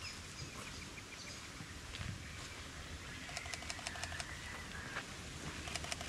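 A Sony a7 IV shutter firing in rapid bursts of evenly spaced clicks, about halfway through and again near the end. Birds call in the trees alongside.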